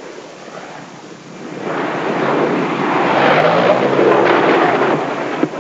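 Airplane noise, a rushing sound with engine tones underneath, swelling from about a second and a half in and loudest near the end as a descending aircraft comes close.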